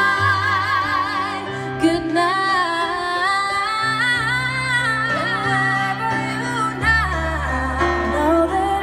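Live music: a singer holding long notes with a wide vibrato over a band's held bass notes.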